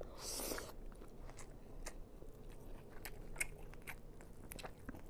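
A person biting into a piece of food with a short crunch about half a second in, then chewing with scattered faint clicks, close on a clip-on microphone.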